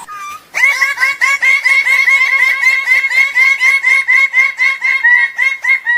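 A bird calling a fast, steady series of repeated notes at one pitch, about four or five a second, after a single short note at the start.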